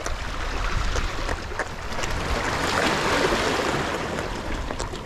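Sea water splashing and washing, swelling about two seconds in and easing off near the end.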